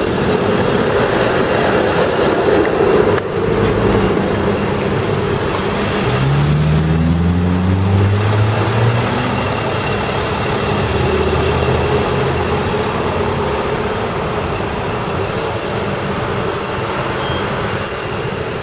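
City street traffic: a steady rumble of engines and tyres from passing cars, taxis and streetcars. About six seconds in, one vehicle's engine rises in pitch for a few seconds as it accelerates.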